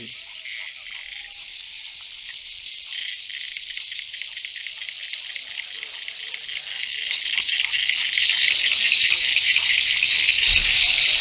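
Chorus of frogs calling steadily in a dense, high-pitched trill, growing louder over the second half.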